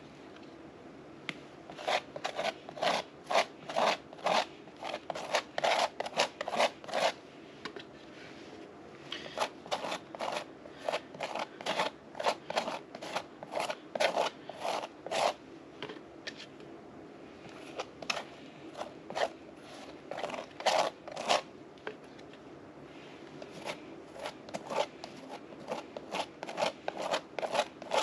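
Small pointed tool scraping and scratching quick strokes across a textured, painted board, about two or three strokes a second, in runs broken by short pauses.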